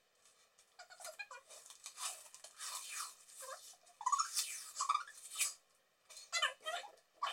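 Adhesive tape being pulled off its roll in a series of short rasping strips as it is wrapped around a hand.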